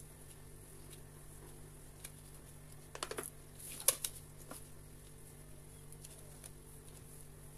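Dough being hand-grated on a flat metal grater: faint scraping, with a quick run of ticks about three seconds in and a sharp click just before four seconds, over a low steady hum.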